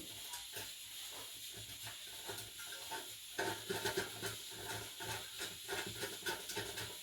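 Small parts being handled: irregular clicks, taps and scrapes over a steady hiss, busier and louder from about three and a half seconds in.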